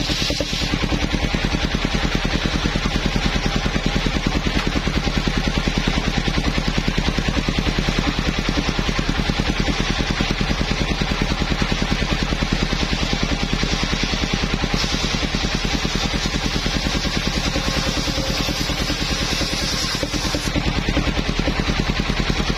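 Engine of a mobile circular sawmill running steadily under power, with fast even firing pulses. A higher hiss swells in for several seconds past the middle and again near the end.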